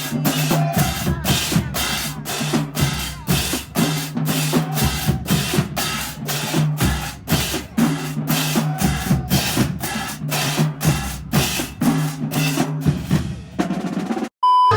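Music with a fast, steady drum beat over a bass line and no vocals; it cuts out briefly near the end.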